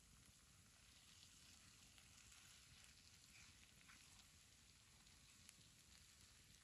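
Near silence: a faint even hiss with a few soft ticks.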